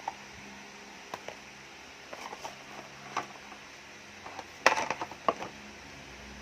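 Light clicks, taps and knocks of a phone box and its packaging being handled and opened, with a louder cluster of knocks about five seconds in.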